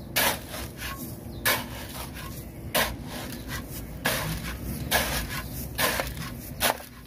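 Steel shovel scraping into and tossing loose gravel, about seven rough scrapes roughly a second apart, as gravel is backfilled around a repaired buried pipe.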